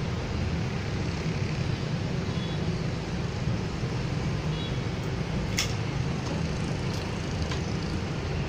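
Steady low background rumble, with a few light clicks about five and a half and seven seconds in.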